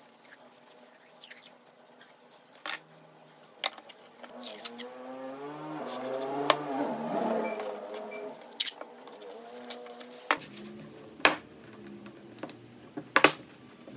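Masking tape being pulled off its roll, with a long screech that wavers in pitch about halfway through, and several sharp clicks and taps as strips are torn and pressed onto the wood.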